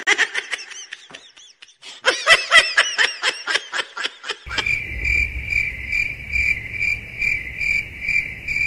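A person's high-pitched giggling laughter in quick bursts. About four and a half seconds in it gives way to a steady high chirping that pulses about twice a second.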